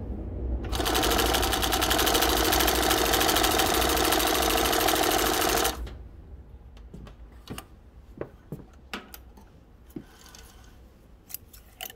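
Speedway SW-1341VS compound-feed, cylinder-bed industrial sewing machine (a Juki LS-1341 copy) running at speed with an even, rapid stitch rhythm, sewing through a single layer of light leather. It starts about a second in, runs for about five seconds and stops abruptly. Scattered light clicks and handling noises follow as the material is moved by hand.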